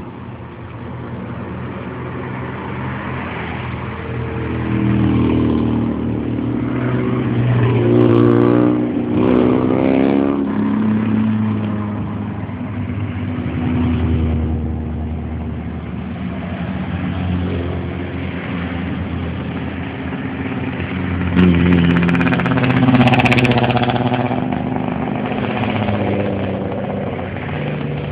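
Rally car engines revving hard, accelerating and changing gear. The pitch climbs and drops several times, and there is a cluster of sharp pops about three quarters of the way through.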